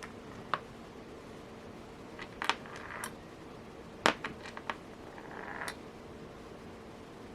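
Small porcelain beads and metal bead caps clicking and tapping against each other and the work surface as they are picked up and threaded, about eight sharp clicks with a quick run of several in the middle and brief rustles between them.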